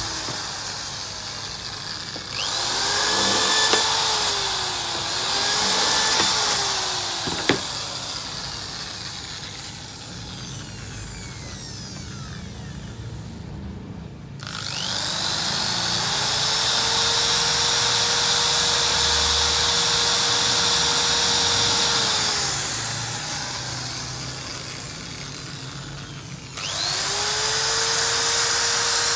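Corded electric hand drill running in three separate bursts: each time the motor whine climbs as it spins up, runs at speed and then winds down as the trigger is let go. The first run wavers up and down in pitch, and there is a single sharp click about seven and a half seconds in.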